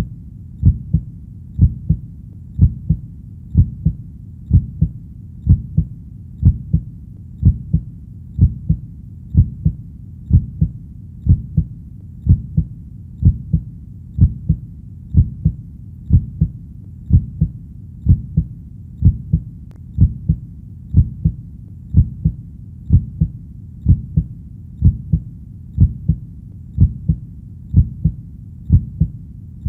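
Heartbeat: a steady lub-dub of two low thumps about once a second, over a low rumble between beats.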